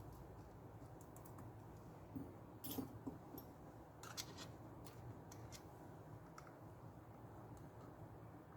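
Faint, scattered clicks and taps of small repair tools working on an iPad, mostly in the middle stretch, over a low steady room hum.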